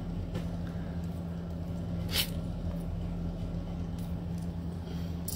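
Eating sounds: a few faint mouth clicks and one sharper click about two seconds in, over a steady low electrical hum.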